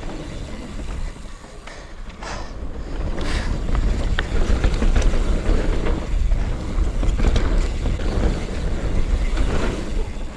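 Mountain bike riding fast down a dirt forest singletrack: knobby tyres rolling on the soil and wind rushing over the camera microphone, with short knocks and rattles from the bike over bumps. It is quieter for a moment after about a second, then grows louder again from about three seconds in as the speed picks up.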